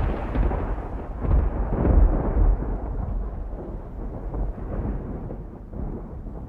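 A deep, loud rumble that swells again about two seconds in, then slowly fades away.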